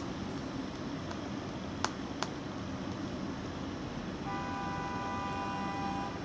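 Steady background hum and hiss. Two light clicks come about two seconds in, and a held, pitched tone sounds for under two seconds near the end.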